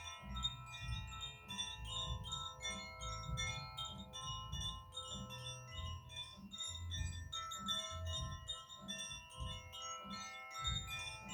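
Koshi chimes swung and shaken, their inner rods tinkling against the tuned tubes in a constant stream of small strikes and many overlapping, sustained ringing tones, with a low rumble underneath.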